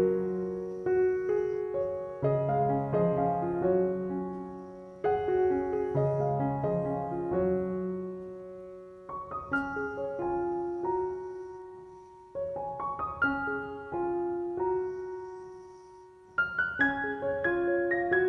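Soft, slow solo piano music: gentle phrases of notes that ring and fade away, a new phrase starting each time the last has died down.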